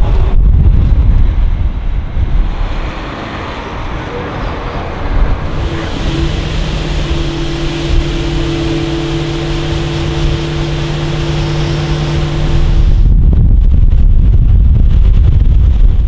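Wind buffeting the microphone, then from about five seconds in a steady rushing hiss of grain pouring with a steady engine drone, as a tractor-drawn grain cart's auger unloads harvested beans into a semi's hopper trailer. The wind buffeting takes over again about three seconds before the end.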